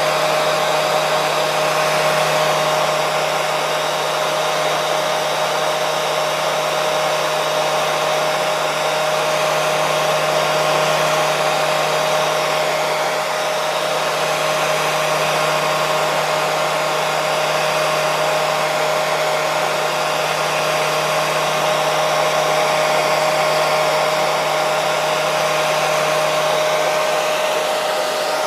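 Hair dryer running steadily: a constant blowing hiss with a steady motor hum and whine, unchanging throughout.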